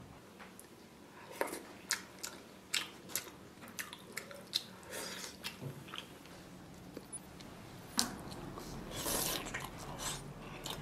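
Close-up eating sounds: wet lip smacks and chewing of spicy fish slices and noodles, a quick run of separate clicks and smacks. About eight seconds in they give way to a louder, longer rushing sound of noodles being slurped.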